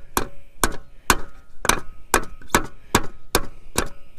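Steady blows with a block of wood, used in place of a hammer, about two a second: tapping the water pump housing with its new impeller down onto the driveshaft of a 2006 Yamaha 15 hp outboard's lower unit.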